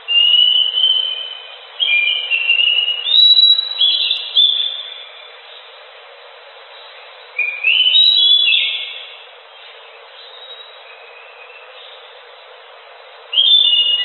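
Anis macan thrush singing in bouts of clear whistled phrases that step up and down in pitch. The bouts come at the start, about two seconds in, about seven seconds in and again near the end, over a steady background hiss.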